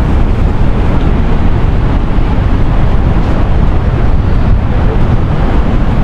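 Loud, steady rush of water from Niagara Falls and the churning river below it, mixed with wind buffeting the microphone.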